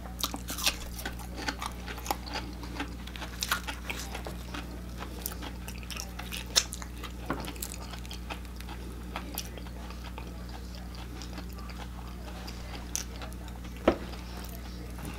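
Close-miked chewing of crispy fried tater tots: wet crunching and small clicks, thickest in the first half and thinning out later, with one sharp click near the end over a steady low hum.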